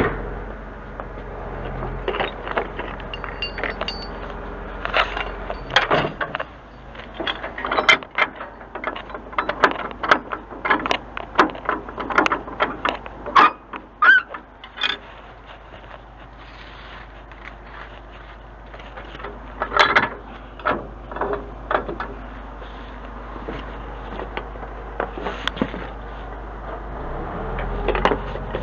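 Metal clanking and chain rattling as a lifting chain and steel truck fittings are handled, in quick bursts with a lull in the middle, over the low steady hum of an idling truck engine.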